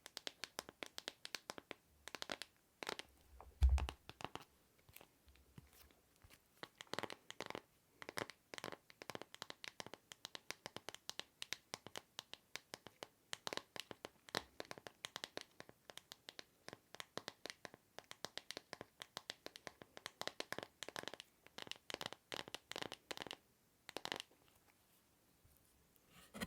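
Quick, irregular tapping and scratching on a small object by hand for ASMR, several sharp clicks a second. There is one low thump about four seconds in, and the tapping thins out about two seconds before the end.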